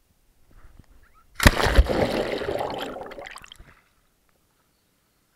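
A sudden big splash in lake water right at the microphone, then sloshing water that fades out over about two seconds.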